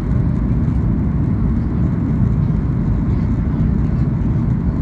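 Steady low cabin roar inside a Boeing 737 in flight: engine and airflow noise, even throughout with no distinct events.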